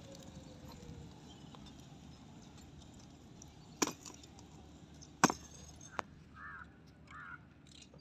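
A motorcycle engine, faint and falling in pitch as the bike slows to a stop, over a quiet outdoor background. Two sharp clicks, close and the loudest sounds here, come about four and five seconds in, with a smaller one about a second later.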